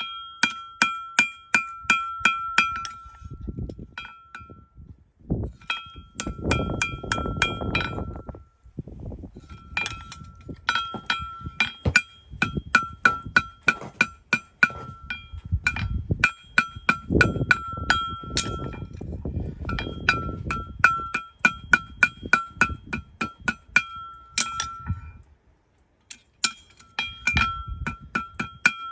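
A hard metal object is struck repeatedly in quick runs of about four blows a second, each blow ringing at the same clear pitch. The runs last a few seconds and are separated by short pauses, with a low rumbling underneath.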